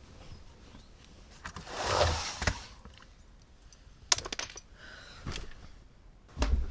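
Handling noise in a small room: a swelling rustle about two seconds in, then a scatter of sharp clicks and knocks.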